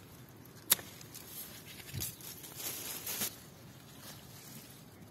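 Hand pruning shears cutting grapes from the vine: one sharp snip about a second in, then softer clicks and rustling as the bunch and leaves are handled.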